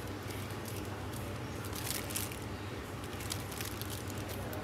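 A damp pad rubbed over the smooth face of a leather strop, spreading liquid green honing compound, with faint squishing and the crinkle of a plastic glove. A steady low hum lies underneath.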